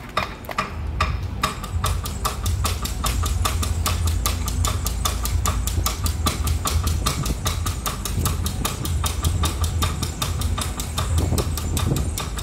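Fast, even percussion from a row of small bossed gongs struck for a traditional Filipino dance, about five strokes a second, with a faint ringing between strokes. A steady low rumble runs beneath it.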